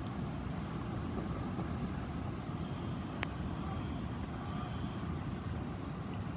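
Steady low rumble of a vehicle, with a single sharp click about three seconds in.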